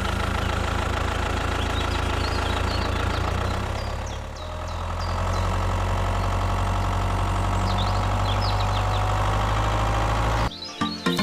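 Small engine running steadily, dipping briefly about four seconds in and then holding a slightly higher, even run. It cuts off abruptly near the end as music starts.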